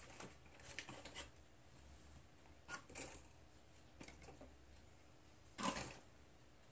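Faint scattered clicks and rustles of small tools and parts being handled, with one louder scrape or rustle near the end.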